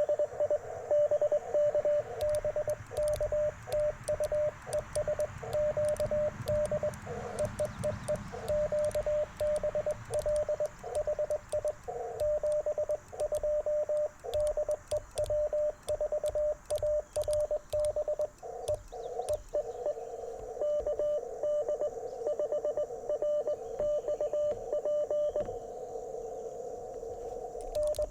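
Morse code (CW) on an Icom IC-705 amateur radio transceiver: a single mid-pitched tone keyed on and off in dots and dashes, over a band of receiver hiss. A low rumble swells and fades during the first ten seconds or so.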